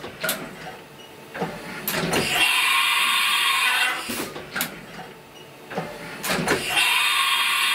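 A machine working in a repeating cycle: a loud, steady stretch of about a second and a half comes about every four seconds, with clicks and knocks in the quieter gaps between.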